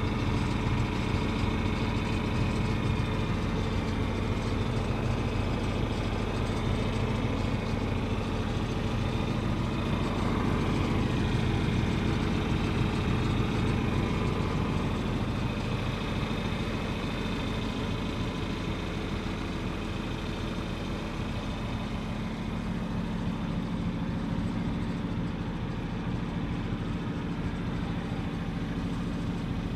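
Heavy engine running steadily at a constant speed.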